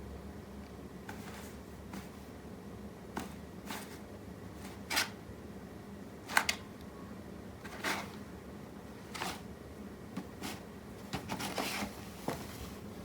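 Scottish Fold kitten making a series of short, soft, rustly noises at uneven intervals, the loudest about five and six seconds in, with a quicker run of them near the end.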